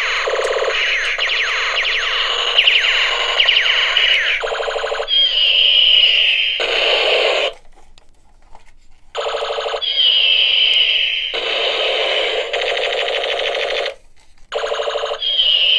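Battery-powered Ben 10 toy gun playing its electronic shooting sound effects through a small speaker: rapid repeated zaps and a falling laser-like whine, repeating in a cycle. The sound stops twice for a second or so.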